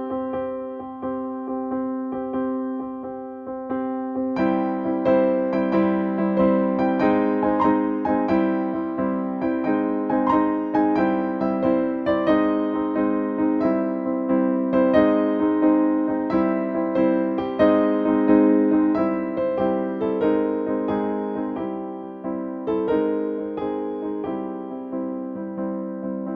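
Background music played on electric piano: a gentle run of sustained chords and notes, growing fuller about four seconds in.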